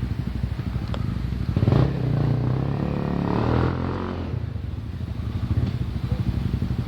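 Four-stroke single-cylinder trail bike engine running with a low putter. The revs rise about two seconds in and fall away again by about four seconds, then it settles back to a steady low running.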